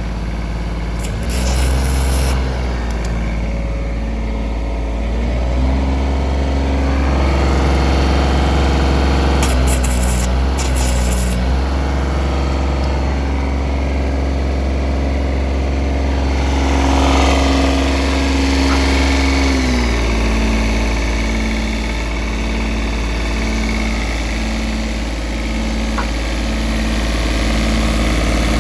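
Diesel engine of a Denyo DAT-270ES2 engine welder-generator running. It speeds up a few seconds in, holds the higher speed, then drops back to a lower idle about two-thirds of the way through.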